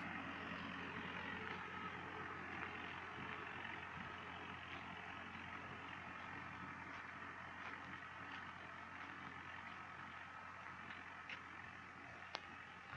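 Hindustan tractor's diesel engine running steadily as it pulls a land leveler across dry soil, fading slowly as it moves away. A single sharp click near the end.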